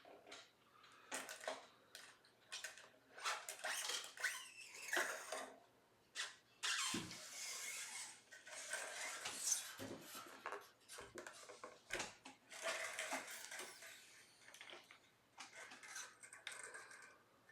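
Irregular metallic clicking, rattling and scraping from new steel strings being handled and fitted to an electric guitar, with loose string ends and hardware clinking.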